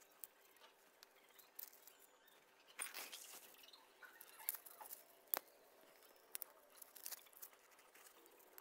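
Faint rustling, scratching and small clicks as fingers push shallot bulbs into loose, crumbly potting soil and brush dry papery onion skins, with a denser rustle about three seconds in and one sharper click a little past halfway.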